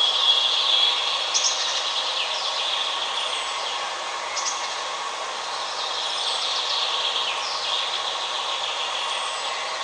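Several songbirds singing: short chirps and whistled phrases that slide in pitch, repeating every second or so over a steady background hiss.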